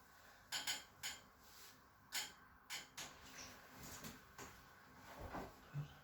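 A series of sharp, irregular clicks and taps, about eight over four seconds, from hands-on chiropractic work on the patient's body and the treatment table.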